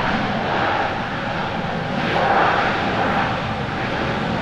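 Jet engines of a Boeing 777-200ER on its landing roll: a steady, loud rush of engine and air noise that swells a little about two seconds in.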